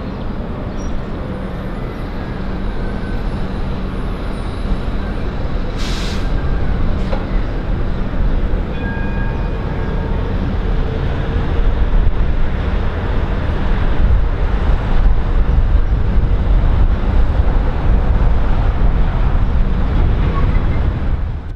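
Steady rumble of city street traffic: cars, buses and trams crossing a bridge. A short hiss comes about six seconds in.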